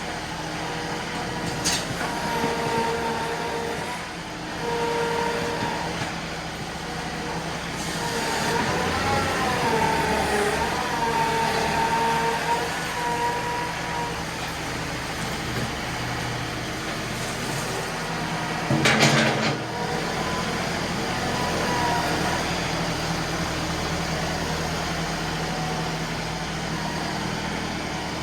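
John Deere 2038R compact tractor's diesel engine running steadily, its pitch sagging and recovering about nine to eleven seconds in. A single loud bang comes about nineteen seconds in.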